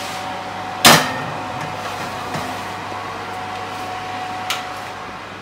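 A metal roasting tin knocks sharply onto the wire oven rack about a second in, then the steady hum of the preheated fan oven, with a faint click near the end.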